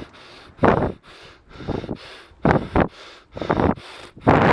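A cyclist breathing hard, with a loud breath roughly every second: out of breath from riding up a steep section.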